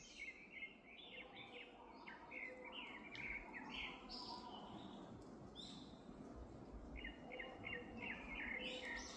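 Yellow-rumped flycatcher singing: rapid phrases of short chirping notes, with a pause a little past halfway and a fresh phrase near the end.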